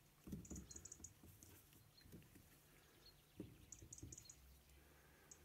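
Near silence, with faint scattered taps and scrubbing of a paintbrush working paint in the wells of a metal watercolour palette.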